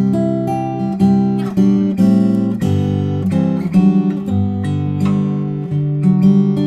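Yamaha LL16 acoustic guitar being strummed, with a new strum about every half second to second and the chords changing as it goes. It is recorded through an MXL 2006 condenser microphone.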